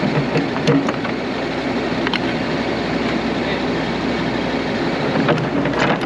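Komatsu crawler excavator's diesel engine idling steadily, with a few sharp knocks about a second in, around two seconds in and near the end.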